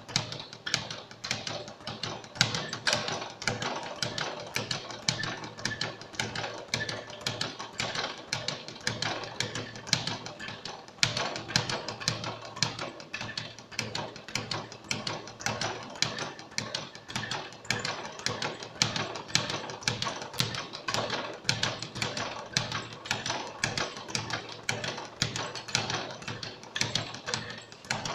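Speed bag being punched nonstop, the bag rattling against the wooden rebound platform in a fast, steady drumming rhythm.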